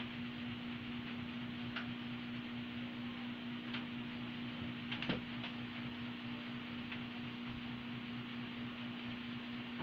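Steady low hum and hiss of a quiet room, with a few light clicks scattered through it and one sharper tick about five seconds in.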